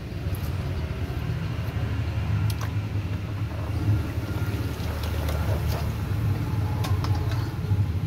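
A steady low rumble like a motor running, with scattered short clicks and light splashing as a plucked duck is cut with scissors and handled in a basin of water.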